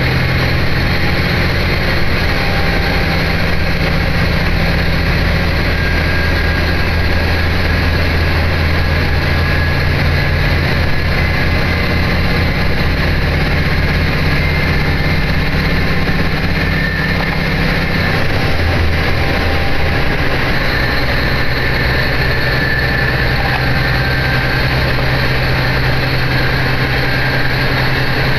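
Inside a diesel railcar under way: a steady engine drone over rolling track noise. The engine note changes about two-thirds of the way through.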